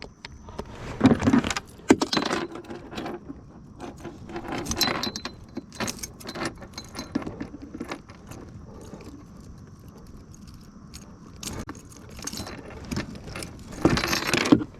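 Metal fishing tackle jingling and clattering in irregular bursts, with knocks of handling as the angler works a hooked fish.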